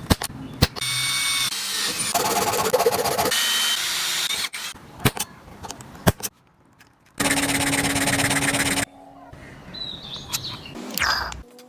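Handheld power tool running in bursts of one to three seconds, with sharp clicks and knocks between the bursts.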